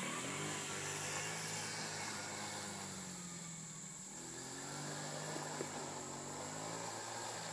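Small Kazuma Meerkat 50cc ATV engine running as the quad rides along a dirt trail, fading somewhat as it moves off and growing louder again as it comes back after about four seconds.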